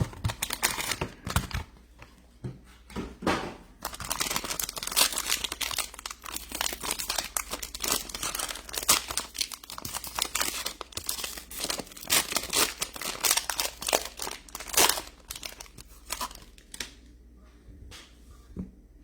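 Plastic wrapping on sealed trading-card boxes being torn open and crinkled, a dense run of crackling that goes quiet near the end.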